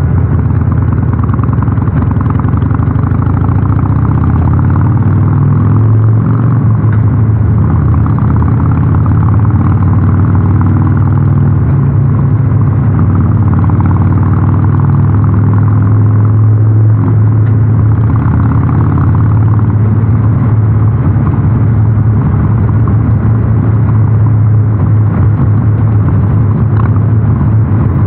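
Harley-Davidson Sportster 883 Super Low's air-cooled 883 cc V-twin, fitted with the North American-spec muffler, running under way inside a road tunnel. The engine pitch climbs a little partway through as the bike gathers speed.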